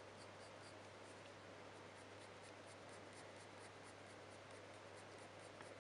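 Coloured pencil scratching faintly on hot-pressed watercolour paper in quick, short, light strokes, about four to five a second, as fur is shaded in.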